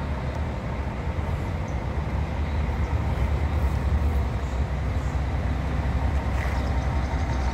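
Diesel engine of a Marcopolo-bodied intercity coach running as the coach rolls slowly forward: a steady low rumble that grows a little stronger about three seconds in.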